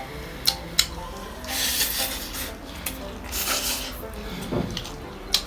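A meal being eaten from a plate. Utensils click sharply against the dish a few times, and there are two short, hissy bursts of eating noise.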